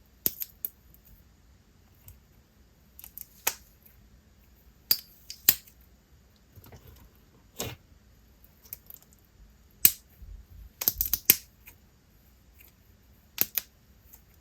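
Slushy white-glue and clear slime being pressed and mixed by hand, giving off irregular sharp pops and clicks as air bubbles burst in it, with a quick cluster of them past the middle.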